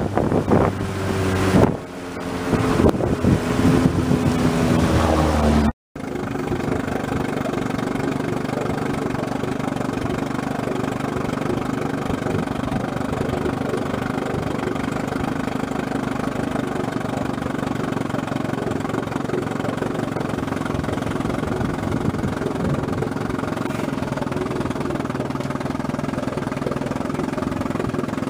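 Vintage outboard motor running, with wind on the microphone and the engine pitch shifting over the first few seconds. After a brief gap about six seconds in, it runs at a steady, even speed.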